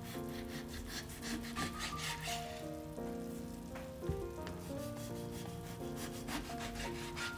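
Kitchen knife slicing raw pork belly on a cutting board in repeated rubbing, sawing strokes, over soft instrumental background music.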